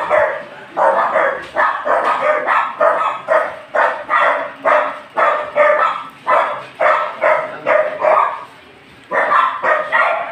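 A dog barking over and over in quick succession, about two or three barks a second, with a short break about eight seconds in before the barking starts again.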